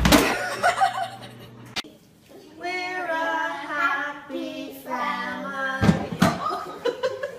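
A doorway pull-up bar comes down with a loud clatter. Then a toddler sings a few notes into a toy microphone, and near the end there is a thump as he tumbles against a trash can.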